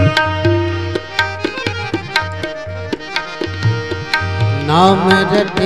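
Instrumental break in a devotional bhajan: a hand drum keeps a steady rhythm with deep bass strokes under long, held melody notes. A singing voice slides in near the end.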